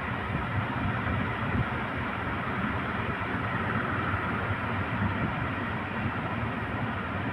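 Large ocean waves breaking: a steady, continuous wash of surf noise.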